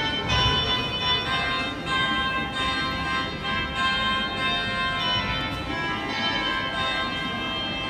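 Sompoton, the Sabahan bamboo-and-gourd mouth organ, being played: several held notes sound together and shift every second or so. There is a short low thump about half a second in.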